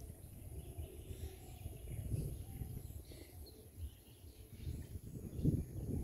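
Outdoor rural ambience: faint, scattered bird chirps over an irregular low rumble that grows louder near the end.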